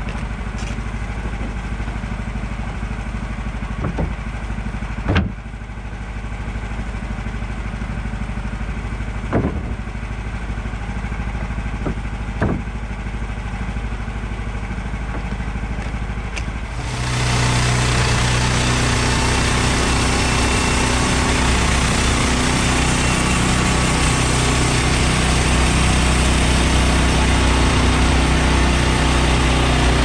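Woodland Mills HM130 portable bandsaw mill's gasoline engine idling steadily, with a few sharp knocks of boards being set down in the first half. About seventeen seconds in the engine sound becomes suddenly louder and fuller.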